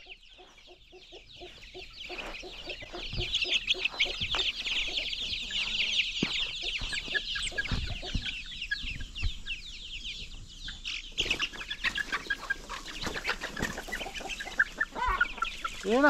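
Many chicks peeping rapidly and continuously, with a hen clucking low underneath; about eleven seconds in the peeping thins out to scattered chirps.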